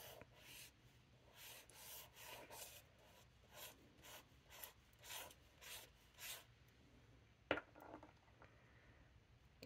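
Faint, soft rubbing strokes of an ink applicator swiping ink across notebook paper, a dozen or so at an uneven pace, followed by a single light click about seven and a half seconds in.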